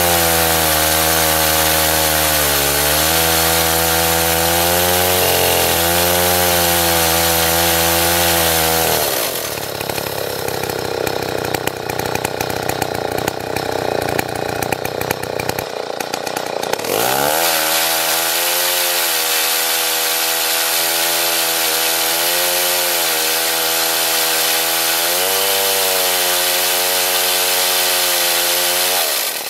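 Stihl 090 two-stroke chainsaw running at high revs with its chain spinning, on a test run of a drip-feed bar oiler. About nine seconds in, the steady engine note gives way to several seconds of rattling noise, then the engine revs back up, runs steady again and cuts off near the end.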